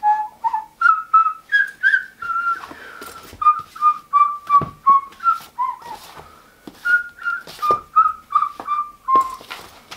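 A tune whistled in short notes, two or three a second, stepping up and down in pitch, with soft knocks of books being slid into a backpack.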